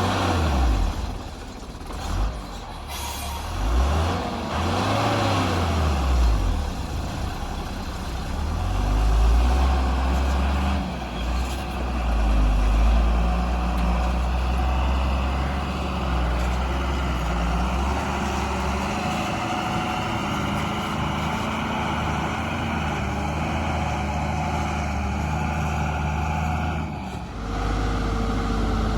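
Heavy diesel machinery of a JCB 3DX backhoe loader and a Tata tipper truck running under changing load, the engine note rising and falling. It dips briefly near the end, then settles to a steady run.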